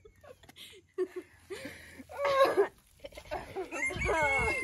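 A rooster crowing: a shorter call about two seconds in, then one long crow near the end that holds a steady high note.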